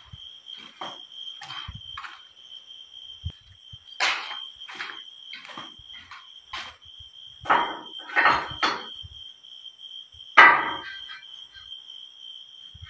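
Steady high-pitched insect trill, typical of crickets at night, with irregular knocks and clatters over it, the loudest a cluster about eight seconds in and a sharp knock about ten seconds in.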